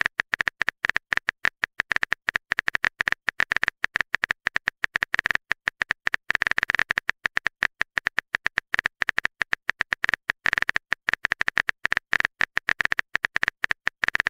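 Phone keyboard typing sound effect: rapid, uneven taps, several a second.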